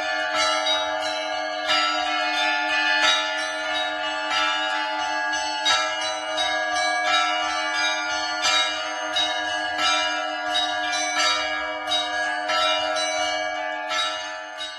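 Russian church bells rung by a bell-ringer: several bells of different pitches struck by their clappers in a continuous rhythmic peal, their tones ringing on between strokes. A heavier stroke lands about every second and a half over quicker strokes of the smaller bells.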